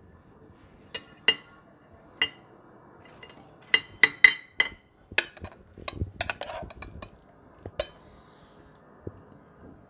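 Metal serving spoon clinking and tapping against a metal saucepan and a ceramic plate as green beans are scooped and dished out: scattered sharp clinks, busiest around four seconds in and again around six seconds in.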